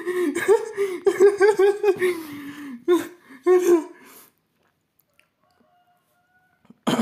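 A person laughing in quick, repeated pulses for about four seconds, then stopping; a brief short sound comes at the very end.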